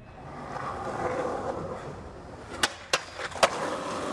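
Skateboard wheels rolling on asphalt, the rolling noise building over the first second, then three sharp clacks of the board a little over halfway through.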